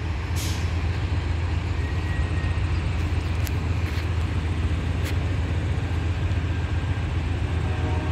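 VIA Rail passenger train pulling away from the station: a steady low rumble from the diesel locomotive and the rolling cars, with a few short sharp clicks.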